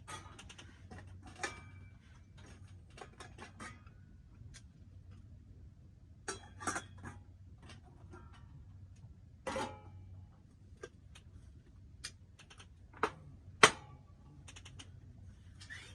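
Scattered small clicks and knocks of things being handled, with a louder knock about three-quarters of the way through, over a low steady hum.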